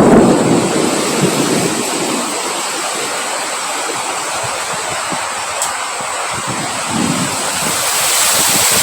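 Strong wind blowing in gusts: a loud gust easing off in the first second or two, a steadier rush through the middle, then building again near the end.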